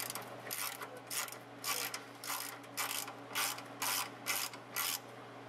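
Socket-wrench ratchet clicking in short bursts, about two a second, as the oil-pan drain plug is turned out.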